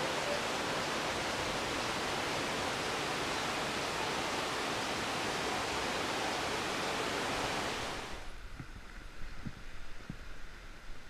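Heavy rain falling steadily on the rainforest canopy, an even hiss that cuts off abruptly about eight seconds in. A much quieter background with a few soft knocks follows.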